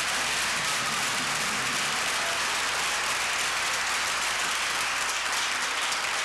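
Audience applauding steadily, a dense even clatter of many hands, heard through a worn VHS transfer.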